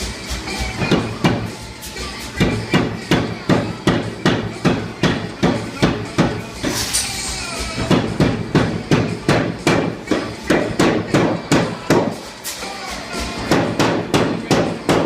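Sahinler 60 kg self-contained air power hammer striking hot steel bar stock in a steady run of blows, about three a second, with a few short pauses between runs.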